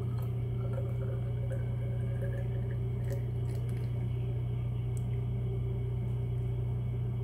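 Thick fruited Berliner Weisse slushy sour pouring in a steady stream from a can into a glass, with a few faint clicks, over a constant low hum that is the loudest thing heard.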